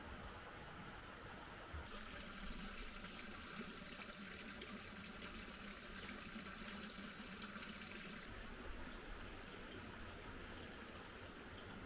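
Faint, steady outdoor rushing like running water, its tone shifting about two seconds in and again about eight seconds in.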